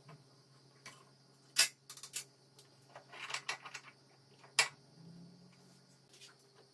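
Metal tools being handled on a steel drill-press vise: a few sharp metallic clicks, a short rattling cluster of clinks midway, and another sharp click near the end, over a faint steady low hum.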